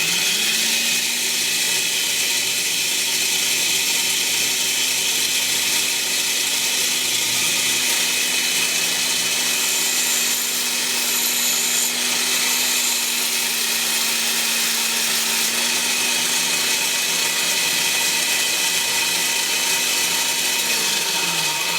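Vintage electric drill mounted in its stand, spinning a grinding wheel: the motor whine comes up to speed at the start, runs steady with a strong hiss, and winds down near the end as it is switched off.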